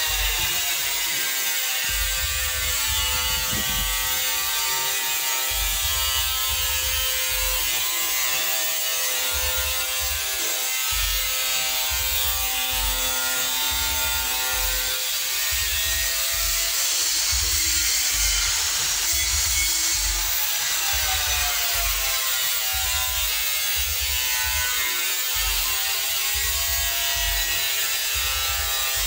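Background music with a pulsing bass beat and buzzing electronic tones that slowly bend up and down in pitch.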